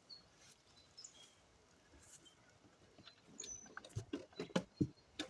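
Cardboard packaging and parts being handled while unboxing a lawn mower: a few faint high chirps, then from about three seconds in a quick run of sharp knocks and rustles.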